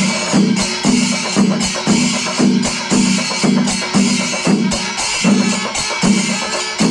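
Kerala temple percussion ensemble (chenda melam) playing: chenda drums beaten in a steady pulse of about two strokes a second, under a dense, continuous clash of elathalam cymbals.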